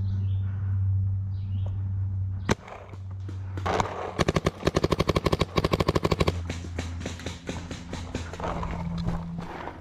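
Paintball marker firing: a single shot, then about a second later rapid strings of shots, roughly nine a second, for about two and a half seconds, followed by scattered shots. A steady low hum runs underneath.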